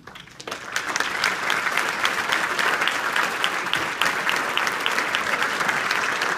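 A large crowd applauding, building within the first second to steady, dense clapping.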